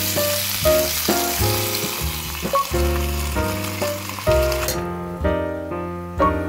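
Hot water hitting a hot pan of frying gyoza: a loud hiss and sizzle that cuts off sharply about four and a half seconds in as the hinged lid is shut. Background music with piano-like notes plays throughout.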